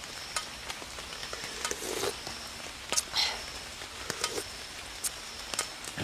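Light drizzle making a steady hiss, with scattered irregular taps and clicks.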